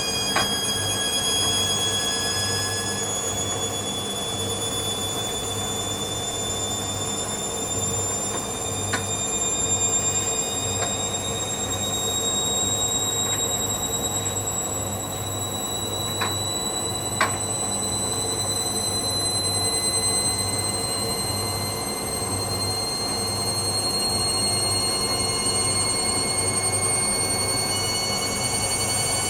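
Hoover Dynamic Next washing machine in its final spin, the drum speeding up from about 400 towards 800 rpm: a steady motor hum under high-pitched whining tones that rise slowly in pitch, a screech the owner puts down to the motor bearing. A few faint clicks.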